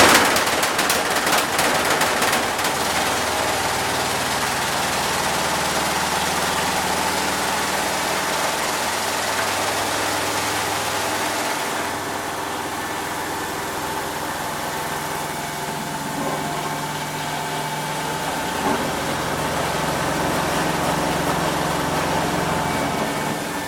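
Esatto EFLW9 front-loading washing machine in its spin cycle: a steady motor and drum hum whose tones shift slowly in pitch, with a loud rushing noise that drops away about halfway through.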